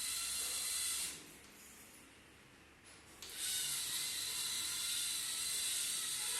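LEGO EV3 motors and gear trains of a LEGO car whirring in two runs: a high-pitched whirr for about the first second, much quieter for the next two seconds, then whirring again from about three seconds in.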